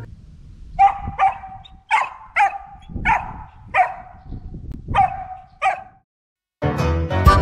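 Samoyed barking in short, sharp yips, about eight in five seconds. Music comes in near the end.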